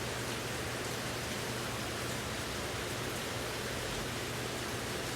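Steady rain falling, an even hiss, with a faint low hum underneath.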